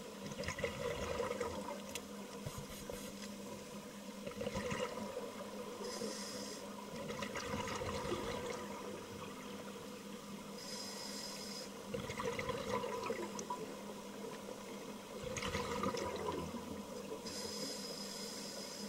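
Scuba regulator breathing heard underwater: short hissing inhalations through the demand valve alternate with bubbling rushes of exhaled air, a breath every five seconds or so, over a faint steady hum.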